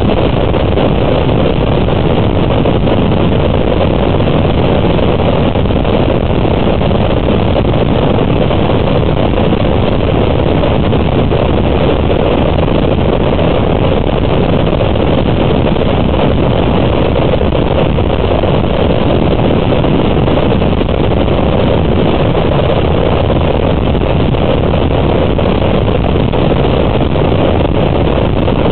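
Motorcycles cruising at highway speed: a steady, loud rumble of engines mixed with wind buffeting the microphone.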